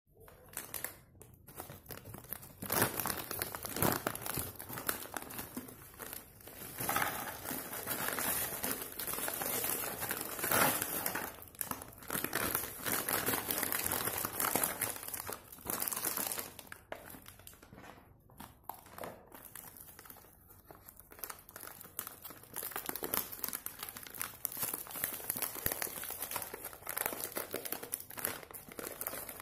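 A crinkly plastic biscuit wrapper crackling and rustling in irregular bursts as a hand digs biscuits out of it, with biscuits dropping into a plastic bowl.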